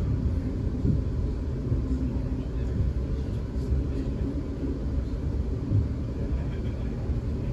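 Steady low rumble of a South Western Railway Class 450 electric multiple unit running along the track, heard from inside the passenger carriage.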